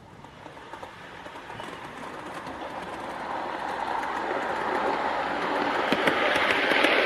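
O gauge model diesel locomotive (Heljan Class 33 converted to a Class 26) and two Mk1 coaches running on garden track, getting steadily louder as the train approaches. The wheels rumble and rush on the rails, with a few sharp clicks near the end.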